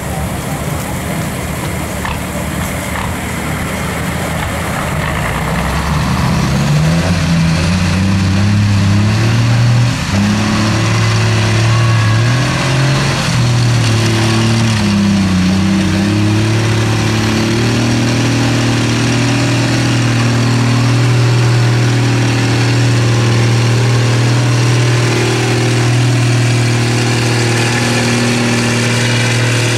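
Off-road truck engine running hard under load in deep mud. After a few seconds of rough rushing noise, the engine note rises and falls as it revs, then holds at a steady drone.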